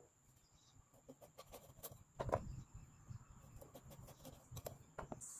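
Light, scattered clicks and taps of raw cashew nuts being picked up and handled, with a louder short animal call a little over two seconds in and a faint steady high-pitched whine.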